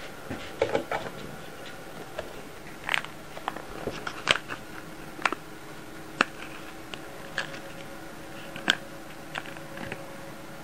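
Wet cat food being squeezed from a pouch into a ceramic bowl: a dozen or so sharp clicks and taps at irregular intervals, over a faint steady hum.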